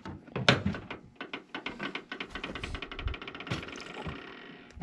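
Hand tools and small metal parts being handled: a few scattered knocks, then a fast, even run of clicks lasting about three seconds.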